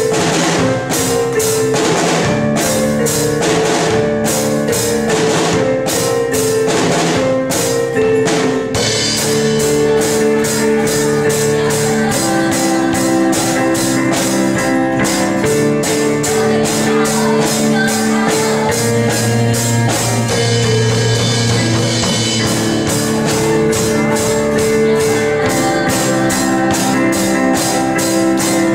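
Band playing an instrumental worship song on drum kit, electric keyboard and electric guitar. Heavy drum hits stand out for the first several seconds, then held chords and melody run over a steady beat.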